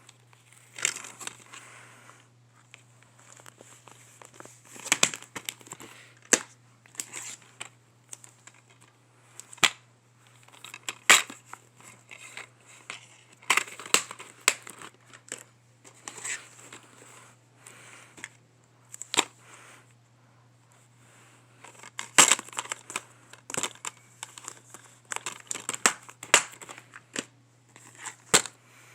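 Plastic packaging on DVDs crinkling and tearing as it is unwrapped, with many irregular sharp clicks and taps from the cases being handled.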